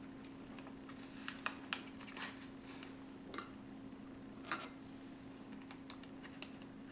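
Faint, scattered light clicks and taps of a metal measuring spoon against a glass Pyrex measuring cup as liquid is spooned out, over a low steady hum.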